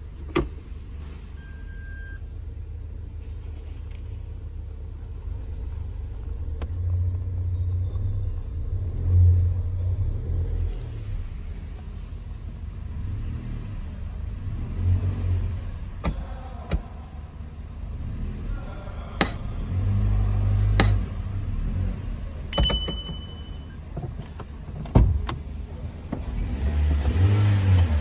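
A Toyota Yaris engine, heard from inside the cabin, running with its freshly replaced drive belt tensioner, a low rumble that swells several times as the car is put in reverse and moved. Sharp clicks from the gear selector and a few short beeps come through it.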